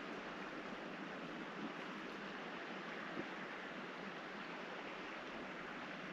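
Steady rushing hiss of outdoor background noise, even throughout, with one faint tick about three seconds in; no otter calls stand out.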